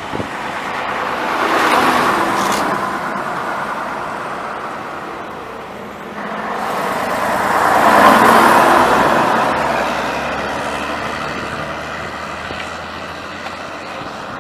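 Vintage London Transport buses driving past on the road: engine and tyre noise swells and fades as each one goes by, loudest about two seconds in and again about eight seconds in. A low engine hum follows as the next bus draws near.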